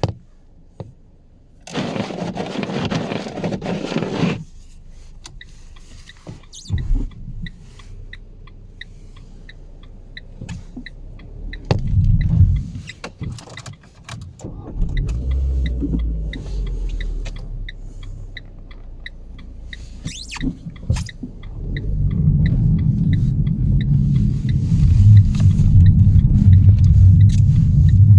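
Car sounds from inside: a loud rustling burst and some knocks, a regular ticking of about two to three ticks a second, like a dashboard chime or indicator, and then the engine running with a steady low rumble that swells and holds over the last quarter.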